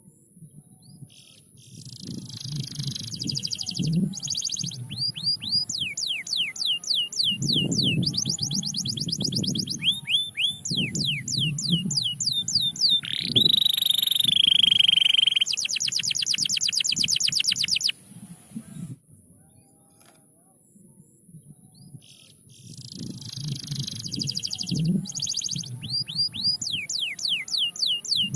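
Domestic canary singing: rolling rapid trills and runs of quick downward-sweeping whistled notes, with one held note about halfway through. The song stops for a few seconds and then starts again near the end.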